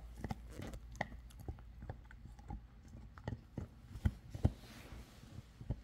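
Yellow Labrador retriever gnawing a red rubber chew toy: irregular clicks and crunches of teeth on rubber, roughly one or two a second.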